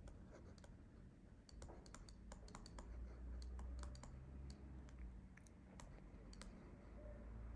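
Faint, irregular clicks and taps of a stylus on a pen tablet while a word is handwritten, over a low steady hum.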